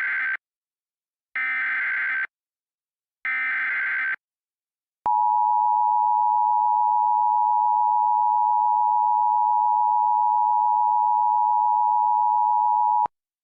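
Emergency Alert System tones: three short bursts of SAME header data tones about two seconds apart, then about five seconds in the steady two-tone EAS attention signal (853 and 960 Hz), which holds for about eight seconds and cuts off abruptly. The sequence announces an emergency alert, here a tornado warning.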